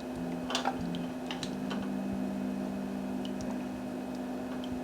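Soy sauce being measured out by the tablespoon: a few light clicks and faint liquid sounds over a steady electrical hum.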